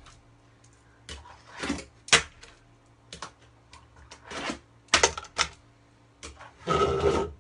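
A fingerboard clacking on a wooden quarter-pipe ramp and tabletop: a string of sharp taps from pops and landings, then a longer scrape near the end, the sound of a grind.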